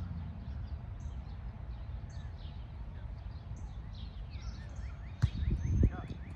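Small birds chirping over and over in short falling notes, over a steady low outdoor rumble. Two loud thumps come about five seconds in, half a second apart.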